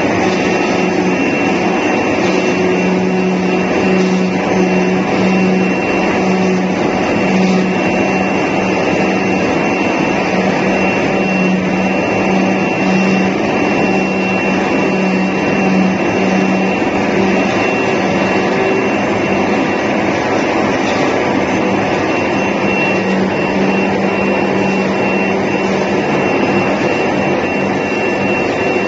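CNC carton sample cutting machine running, dominated by the steady rush of its high-pressure vacuum-table blower, with a low hum and a thin high whine.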